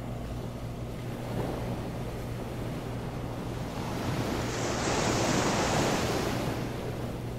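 Ocean waves washing in, one wave swelling to a rush just past the middle and fading again, over a low steady hum.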